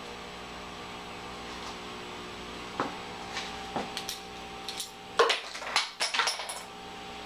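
Hard clear plastic of a green LED book light being snapped and cracked by hand as surplus pieces are broken off: a few scattered clicks, then a quick cluster of sharp snaps about five seconds in. A steady electrical hum runs underneath.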